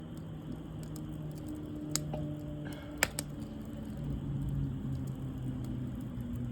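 Wood fire crackling, with two sharp pops about two and three seconds in and fainter ticks between.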